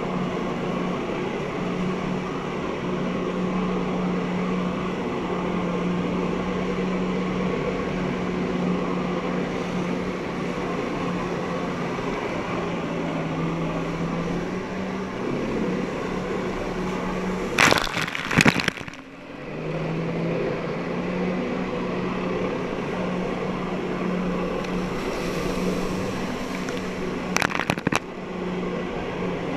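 Personal watercraft engine running steadily at high power, driving water up the hose to a flyboard. Its note sags briefly in the middle. Two loud bursts of splashing spray come a little past halfway and again near the end.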